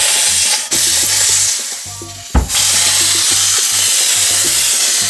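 Compressed air hissing loudly out of a paintball marker as it is aired up: the marker is leaking. The hiss fades and stops briefly, a sharp click comes about two seconds in, and then a steady hiss resumes.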